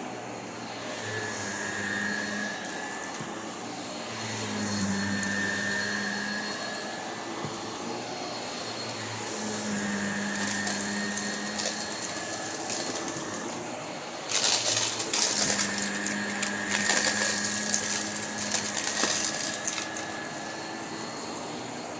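Vacuum cleaner running steadily, its motor sound swelling and easing every few seconds. About two-thirds of the way in comes a few seconds of sharp crackling and rattling, typical of grit or debris being sucked up.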